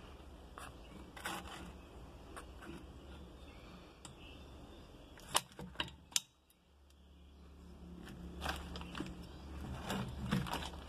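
Scattered metallic clicks and clinks from hands handling the exposed gearbox shafts and gears in the opened crankcase of a Gilera Smash 110 engine. A few sharp, loud clicks come about five to six seconds in.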